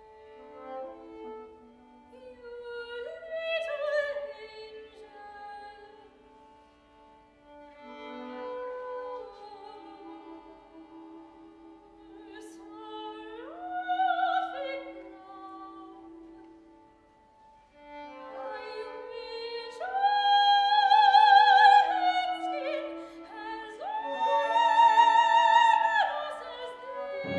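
Chamber opera music for soprano, flute, violin and percussion: soft sustained lines that swell in phrases. The loudest are high held notes with vibrato in the last several seconds.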